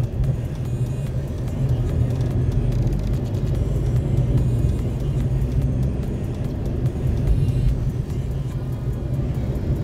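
Steady low rumble of a car's engine and tyres on the road, heard from inside the moving car.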